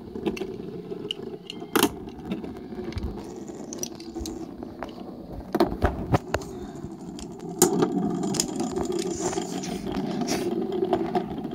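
Two Beyblade spinning tops spinning and grinding across a wooden board, a steady rattling scrape. Sharp clacks come several times as the tops knock together, and the scraping gets louder about two-thirds of the way through.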